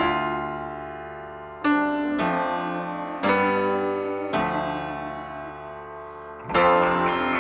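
Background music: sustained piano chords, a new chord struck every second or two and left to ring and fade.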